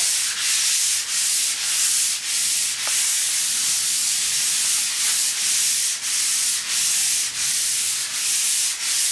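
P220-grit sandpaper on a hand sanding holder being rubbed over a wall coated with two coats of massa corrida (PVA wall putty). It makes a loud, steady, scratchy hiss in back-and-forth strokes, with a short dip between strokes about one and a half times a second.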